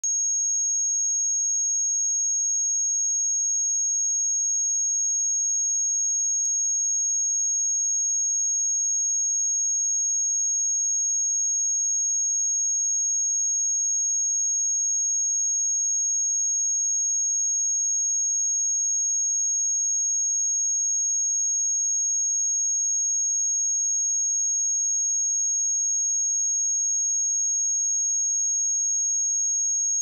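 Steady 6551 Hz sine-wave test tone: a single high-pitched pure tone held at an unchanging pitch and level.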